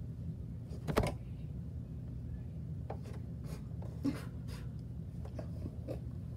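Steady low hum with a sharp knock about a second in, then a few light taps and rustles.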